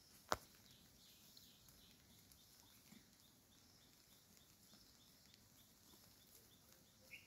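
Near silence: a single sharp click just after the start, then faint, evenly spaced high ticks about three a second.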